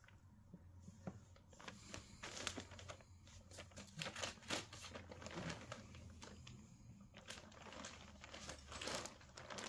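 Thin plastic bag of toys crinkling faintly in short, scattered rustles as a cat noses around inside it.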